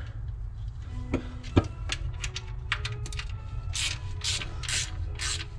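Hand tool working a bolt on a clutch installation: scattered sharp clicks, then a run of short rasping strokes about twice a second near the end, over a steady low hum.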